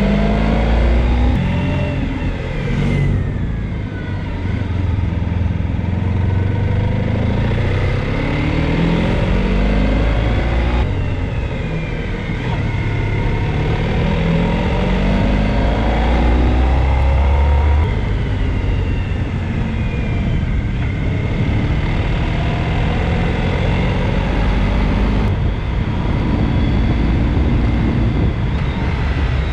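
Honda ST1300 Pan European's V4 engine pulling up through the revs several times, dropping back between rises as the motorcycle accelerates and shifts gear, over steady wind and road noise.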